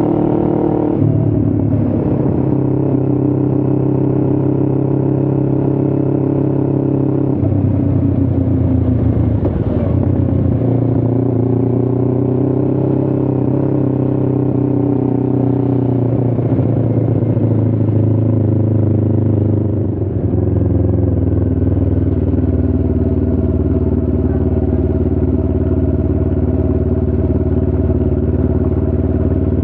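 Motorcycle engine running under way on the road, its note steady between a few step changes in pitch, as it shifts gears or changes speed.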